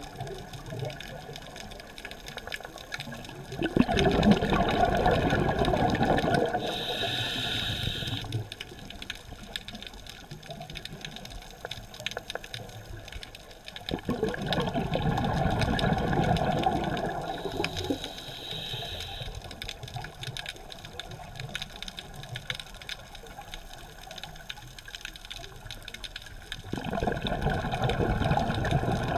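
A scuba diver's breathing through the regulator, heard underwater: exhaled bubbles rush out in three long bursts about ten seconds apart. Each burst is followed by a short, higher hiss of the regulator on the next intake.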